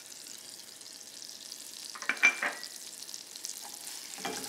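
Butter and brown sugar sizzling in a hot metal pan as they are stirred into caramel. About two seconds in, the spoon clicks and scrapes against the pan, the loudest sound, and it knocks against the pan once more near the end.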